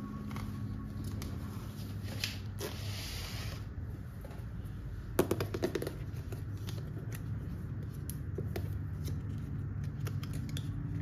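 Hands handling and opening a small white cardboard box, with paper and card rustling and scraping. A rubbing scrape comes about two to four seconds in, and a quick run of sharp crackling clicks about five seconds in is the loudest part.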